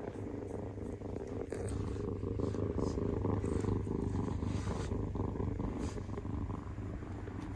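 A Minuet kitten purring, a steady low rumble of fast, fine pulses that swells a little in the middle: the odd noise heard coming from the kitten.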